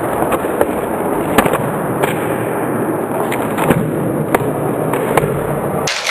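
Skateboard wheels rolling on a concrete floor, broken by a run of sharp wooden clacks as the board is popped, flipped and landed, about eight in all, the loudest about a second and a half in.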